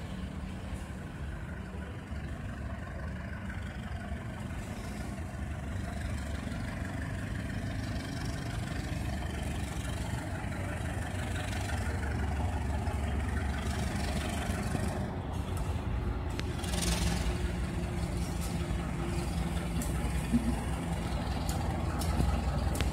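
Diesel locomotive hauling a passenger train, its engine running with a steady low rumble that grows louder as the train draws near, with a short hiss about two-thirds of the way through.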